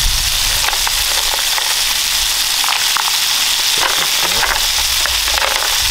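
Hot oil sizzling steadily in a cast-iron skillet of head-on shrimp, clams and mussels frying, with a few light clicks.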